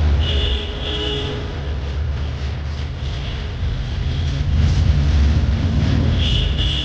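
Street noise with a steady low rumble, and a high-pitched tone heard briefly about half a second in.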